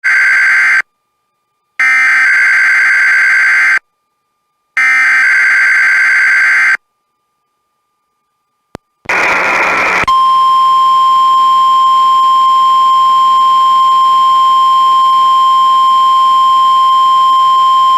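NOAA Weather Radio test signals. First come the end of one and then two more Emergency Alert System (SAME) header data bursts, each a harsh buzzy screech about two seconds long with a second of silence between. After a short burst of noise about nine seconds in, the steady 1050 Hz weather radio warning alarm tone starts about ten seconds in and holds.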